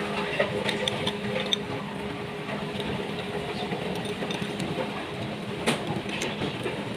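A steady machine hum runs in the background while spanners clink against the engine's metal fittings a few times in the first second and a half, with one louder clink near the end, as fittings on a Komatsu four-cylinder engine are loosened by hand.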